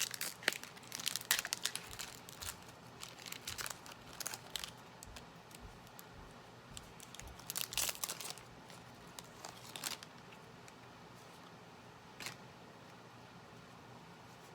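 Foil wrapper of a Pokémon trading card booster pack being torn open and crinkled in the hands: bursts of crackling through the first half, another flurry a few seconds later, a last crinkle near the end, then it goes quiet.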